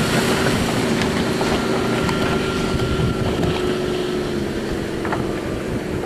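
A Yanmar-powered motorboat runs at speed and pulls away. Its steady engine drone slowly fades against the hiss of the wake and wind on the microphone.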